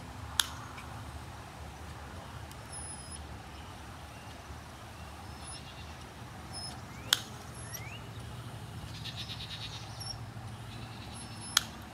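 Three sharp snips of dog nail clippers cutting a Pomeranian's front toenails, spaced several seconds apart, over a low steady background hum.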